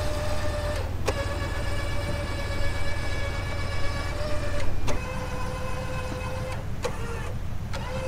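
A winch motor whines steadily as it hauls in cable under load, over the low, steady idle of a truck engine. The whine breaks off briefly with sharp clicks about a second in, near five seconds and near seven seconds, then resumes at a slightly lower pitch.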